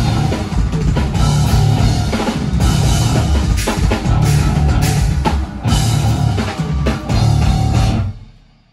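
Live instrumental rock band (distorted electric guitar, bass guitar and drum kit) playing loud, hard-hitting riffs with short breaks between phrases. The band stops about eight seconds in and the last chord dies away.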